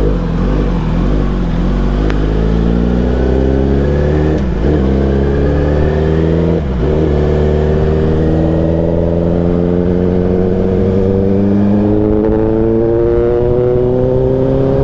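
Kawasaki ZX-10R's inline-four engine running with its dB killer removed, so the exhaust is loud. The bike accelerates, its note dipping briefly twice about four and a half and six and a half seconds in, then climbing steadily.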